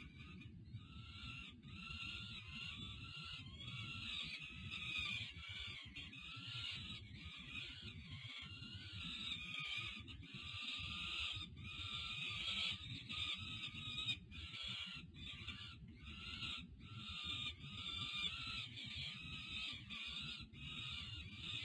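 Peregrine falcon young wailing in continuous, high food-begging calls while being fed, over a low rumble.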